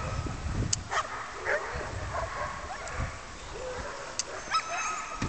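Sled dogs yelping and barking in short, high calls: a few about a second in, then a burst of them near the end.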